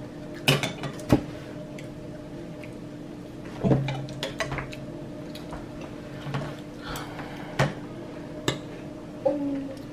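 Metal spoons clinking and scraping in cereal bowls as the boys eat cereal with milk, a handful of sharp clinks spread out over a steady low hum.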